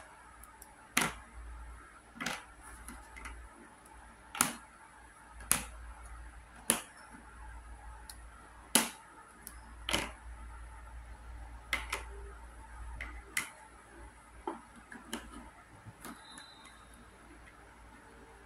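Hard plastic cube stands clacking as they are set down on a wooden table and knocked into place against one another. About a dozen sharp clacks come at uneven intervals, with a few lighter clicks as the stands are nudged together.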